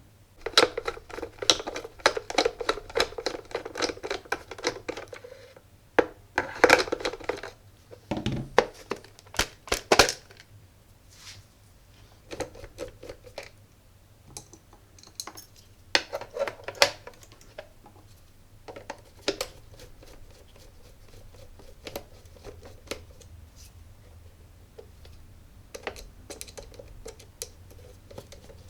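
Clicks, taps and scraping of a small plastic Bluetooth speaker being handled and taken apart. The sounds come thickest in the first seven seconds or so, then thin out to scattered clicks.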